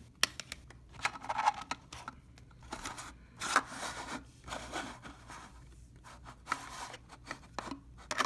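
3.5-inch floppy disks being handled and slid into a storage case: irregular plastic clicks and clacks with scraping and rubbing, the sharpest click about three and a half seconds in.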